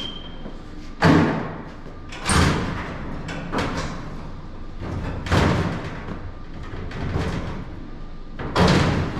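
Heavy knocks and thumps, about five spread out with a short ring after each, as a stuck bar is worked loose from a modified race car's body.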